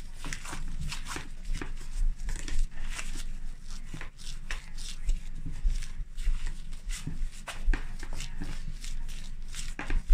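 Gloved hands kneading dough on a plastic cutting board: the disposable plastic gloves crinkle and rustle, and the dough gives repeated dull thumps as it is pressed and pushed against the board.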